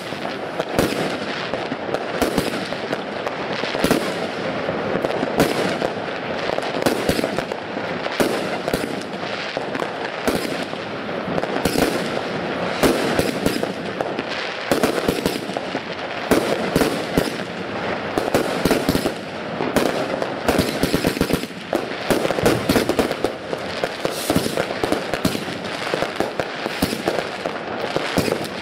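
Small consumer firework cakes firing shot after shot: a dense, continuous run of launch thumps, bangs and crackling star bursts with no pauses.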